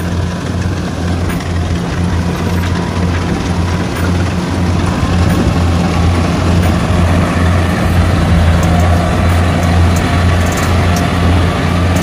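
Kubota rice combine harvester running under load as it cuts and threshes rice: a steady, loud diesel engine drone with a constant low hum, overlaid by the dense rushing clatter of the cutting and threshing machinery.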